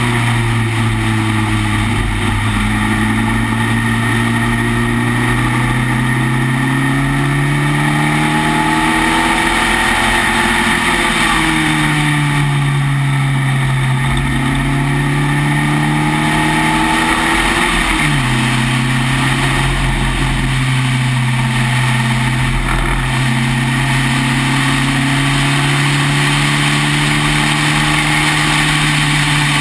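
Spec Racer Ford's four-cylinder engine running hard at racing speed, heard from the open cockpit. Its pitch climbs steadily, dips briefly about ten seconds in, climbs again, then drops sharply with an upshift about eighteen seconds in before climbing once more.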